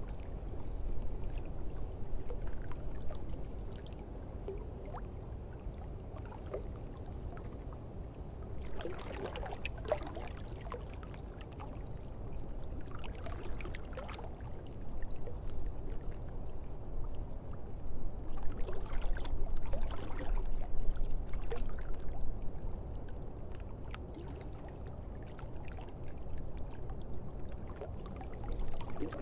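Water sloshing and pouring over a steady low rumble, with louder splashing stretches around ten and fourteen seconds in and again from about eighteen to twenty-two seconds.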